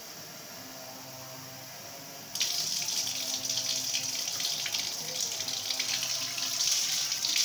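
Tap water running through a hose into a plastic bottle as it is rinsed of soap. The flow comes on suddenly about two seconds in, as a steady rushing hiss.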